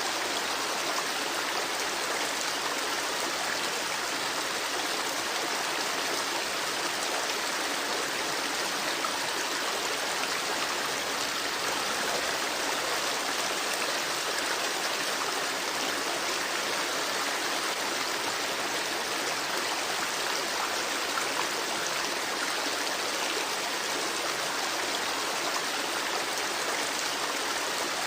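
Campfire burning with a dense, even crackle and hiss, with no single loud pops standing out.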